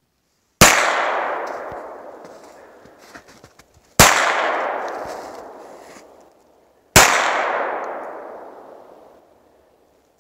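Three gunshots about three seconds apart, each sharp crack trailing off in a long echo through the forest.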